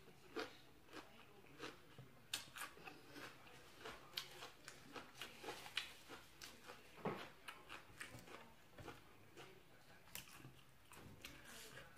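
A person chewing and biting food close to the microphone: faint, irregular wet clicks and small crunches, with one sharper crunch about seven seconds in.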